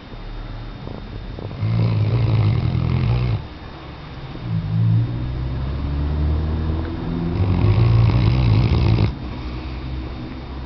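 Weimaraner dog snoring in its sleep: low, rattling snores, a shorter one about two seconds in and a longer one from about four and a half seconds that cuts off near nine seconds.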